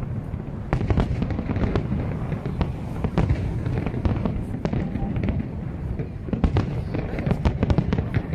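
Aerial fireworks shells bursting in a rapid, continuous barrage: many sharp bangs in quick succession over a steady low rumble.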